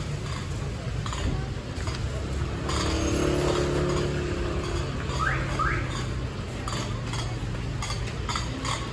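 Busy street ambience: a steady low rumble of traffic and motorbike engines, with an engine hum swelling about three seconds in. Two short rising squeaks come a little after five seconds, and light clicks and clinks come near the end.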